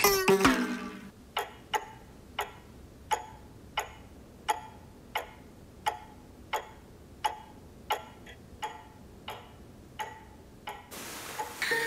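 Cuckoo clock ticking steadily, about one tick every 0.7 seconds, after a loud ringing strike at the very start. Near the end a rising hiss swells up.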